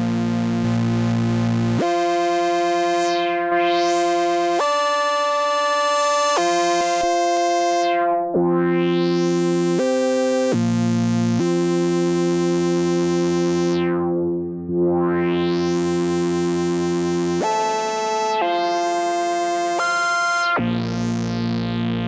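Moog Grandmother analog synthesizer playing a sustained pad patch: held notes that change pitch every second or two. Several times the tone darkens and then brightens again as the filter cutoff is swept down and back up.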